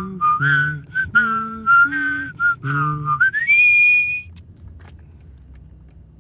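A person sings and whistles at the same time, a low voiced line under a higher whistled melody, performing a Japanese train announcement chime in the key of D. A little after three seconds in, the voice drops out and the whistle glides up to a high held note that stops about a second later. Only a faint low rumble follows.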